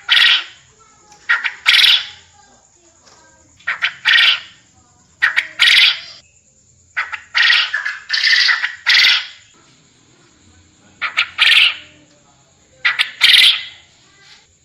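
Quail crowing again and again: short, loud bursts of a few quick notes that run into a longer one, repeated about every second and a half to two seconds.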